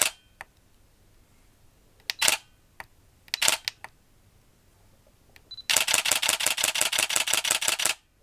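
Canon EOS 800D DSLR's mirror and shutter firing: three single shots a couple of seconds apart, each a quick double click. Then a short focus-confirmation beep, and a rapid continuous-shooting burst of about two seconds that stops sharply.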